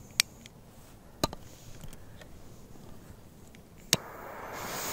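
Jet torch lighter clicked three times: two sharp clicks early on and a third about four seconds in, when it catches and a hiss of flame rises and keeps growing as it is held to the firecracker fuses.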